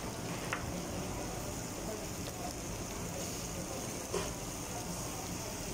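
Restaurant room noise: a steady hum of ventilation and faint background chatter, with two light clinks of a spoon against a ceramic bowl, about half a second in and again about four seconds in.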